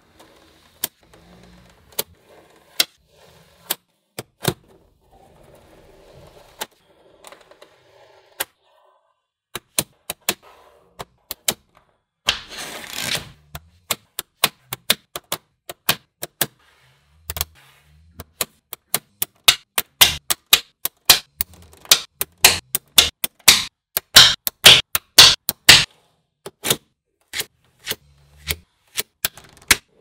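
Small magnetic balls clicking as they snap onto one another: sharp single clicks, sparse at first, then coming in quick runs in the second half, with one short rattle near the middle.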